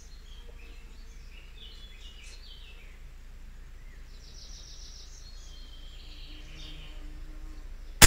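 Birds chirping faintly over a steady low hum. Right at the end comes the sudden sharp crack of a moderated .22 LR rifle shot.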